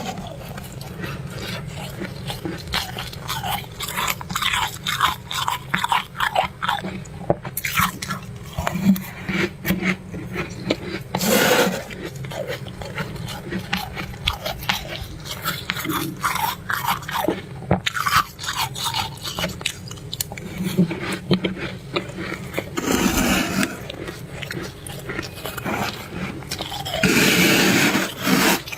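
Close-up biting and chewing of crunchy freezer frost ice: a steady run of small crisp crunches, with louder, longer crunching bites about 11 seconds in, around 23 seconds and near the end.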